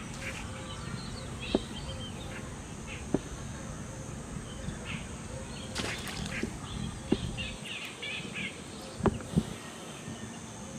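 Small birds chirping in short, scattered calls over steady outdoor background noise, with a few sharp knocks, two of them close together near the end.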